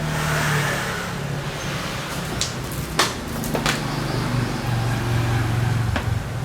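A motor running with a steady low hum that drops in pitch a little past the middle, with a few sharp clicks over it.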